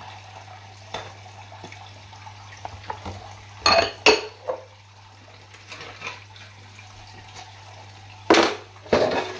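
Soapy ceramic bowls knocking and clattering against each other as they are hand-washed with a sponge and stacked in the sink. The clatters come in short pairs, about four seconds in and again near the end, with quieter scrubbing and light knocks in between.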